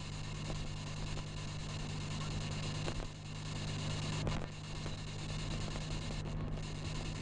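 Steady road and engine noise inside a moving car's cabin: a constant low hum under an even hiss, with a faint click or two about three and four seconds in.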